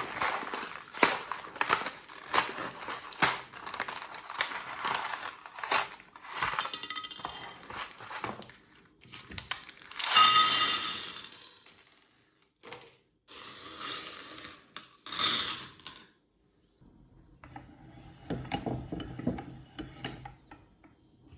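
Hard pebbles clattering, clinking and crunching as they are fed through a meat grinder, in a rapid, irregular run of cracks. Past the middle come two louder grinding bursts, and near the end it turns quieter.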